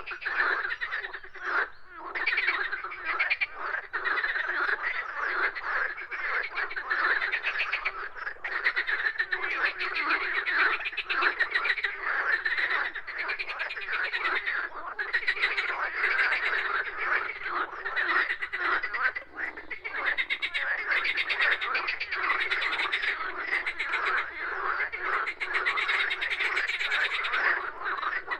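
A chorus of many frogs croaking at once, a dense, unbroken mass of rapid pulsed calls.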